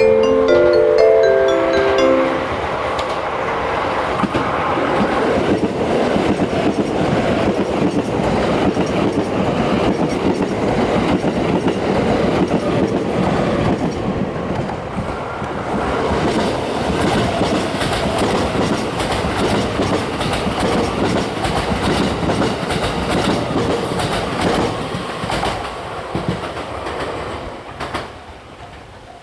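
Series 289 electric limited-express train passing at speed, a dense rush of wheel and rail noise with rapid clatter over the rail joints, fading as it moves away near the end. The last notes of a mallet-percussion chime ring out in the first two seconds.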